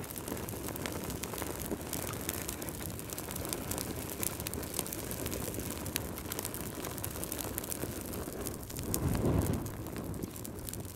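Crackling fire sound effect: a steady hiss dotted with many sharp crackles, with a low rumbling swell about nine seconds in.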